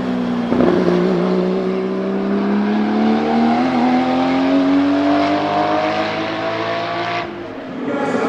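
A 1979 Porsche 935 Kremer K3's 3.2-litre twin-turbo flat-six racing engine running hard on track. Its pitch dips, then climbs slowly under acceleration, then falls away abruptly about seven seconds in.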